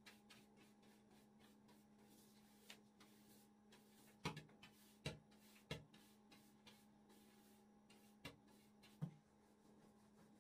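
Quiet scratching of a stiff hand brush sweeping flour off a wooden pastry board, with about five sharp knocks in the second half, over a faint steady hum.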